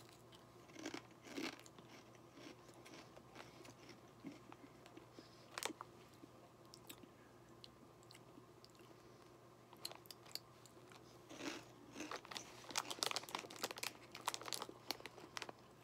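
Crunching and chewing of crispy Japanese fried-potato stick snacks: a few separate crunches in the first seconds, then a dense run of crunching chews in the last few seconds.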